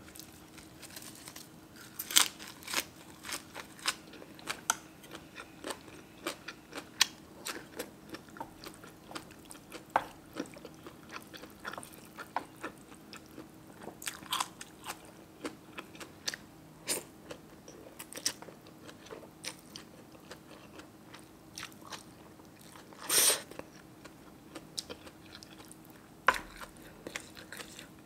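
Close-up eating sounds: chewing and biting, with many small crisp clicks of the mouth and teeth scattered irregularly, and one louder brief noise about 23 seconds in.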